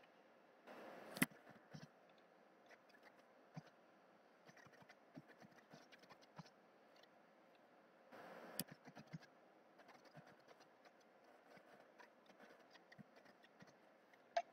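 Faint typing on a computer keyboard: scattered key clicks, with two louder clacks about a second in and about eight and a half seconds in.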